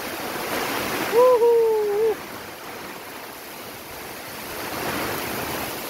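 Heavy rain pouring down in strong gusting wind, a steady rushing hiss that swells twice. About a second in, a brief held tone lasts nearly a second.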